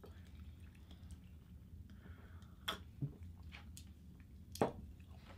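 Quiet room tone broken by two short knocks, nearly three seconds and nearly five seconds in: drinking glasses being picked up from and set down on a table.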